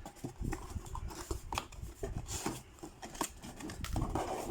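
A cardboard product box being opened and its packaging handled, with irregular scrapes, rubs and light clicks.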